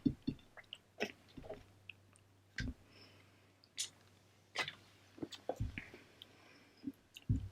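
Close-miked chewing of food: soft, scattered mouth clicks and smacks, with a few low thuds.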